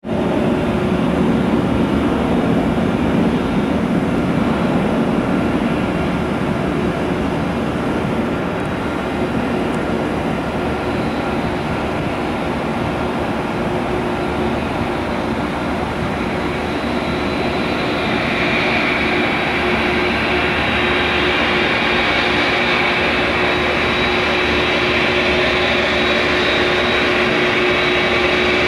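Boeing 787-8 Dreamliner's twin GE GEnx-1B turbofan engines running at taxi power as the airliner taxis closer: a steady jet hum and whine, the higher whine growing stronger about two-thirds of the way in.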